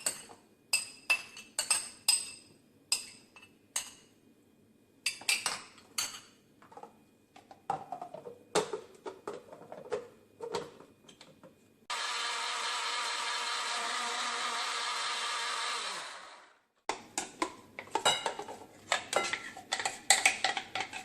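Electric grinder blending soaked red lentils with water. It starts suddenly about twelve seconds in, runs steadily for about four seconds, then winds down. Before and after it, dishes and utensils clink and knock as the lentils are loaded in batches.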